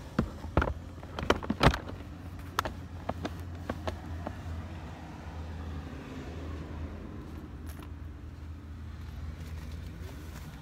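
A run of sharp clicks and knocks in the first few seconds as an infant car seat's harness and buckle are handled and fastened, over a steady low hum of a car.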